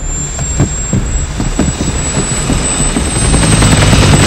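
Helicopter sound effect: a rapid rotor beat over a steady high whine, growing louder near the end as the helicopter comes in close.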